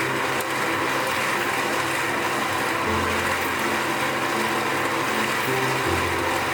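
Concrete mixer drum turning with a steady churning, grinding noise as sand and gravel tumble inside. Background music with slowly changing low notes runs underneath.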